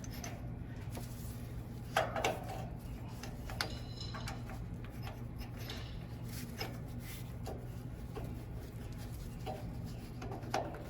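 Scattered light clicks and knocks of metal parts being handled and pushed into place while a tractor's PTO lever assembly is put back together by hand, the sharpest about two seconds in. A steady low hum runs underneath.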